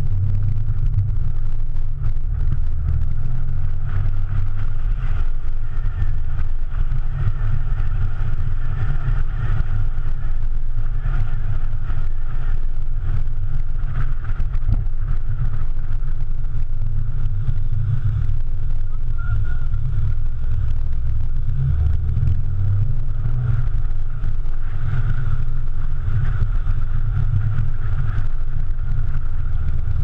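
BMW E46 330Ci's 3.0-litre straight-six through a Bastuck aftermarket exhaust, a steady low rumble as the car cruises at light throttle.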